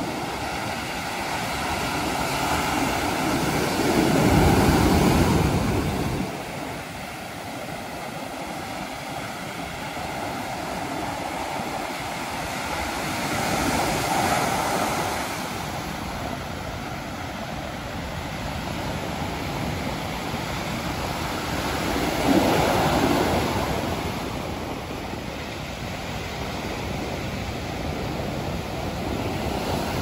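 Rough sea surf breaking on a sandy beach: waves crash and wash up the sand in three surges about eight or nine seconds apart, the loudest about four seconds in.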